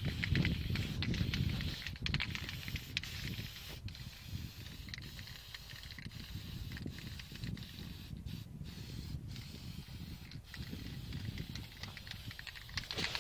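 Aerosol can of copper gasket spray hissing as it coats a cylinder-head gasket, with a few light clicks and knocks.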